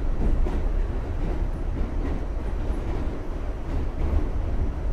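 A New York City subway train running, heard from inside the car: a steady low rumble with a few faint clicks.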